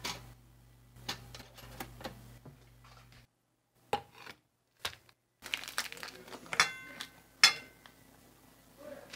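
Kitchen handling sounds: light clicks and plastic-wrapper rustling, then, after a couple of seconds of dead silence, a ceramic plate set down on the counter with a brief ring and a sharp knock of a knife against the plate.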